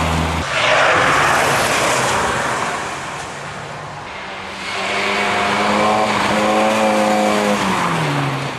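BMW 1 Series rally car rushing past at speed, engine and tyres loud for about two seconds before fading. A few seconds later a second car's engine is heard running hard at steady revs, its pitch dropping as it lifts off near the end.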